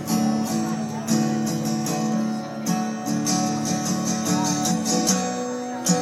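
Acoustic guitar strummed in a steady rhythm, with a kazoo buzzing along on a sustained melody.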